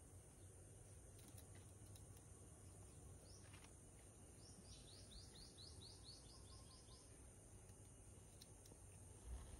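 Near silence with faint bird calls in the background: one downward chirp about three seconds in, then a quick run of about ten descending chirps, roughly four a second. A soft low bump near the end.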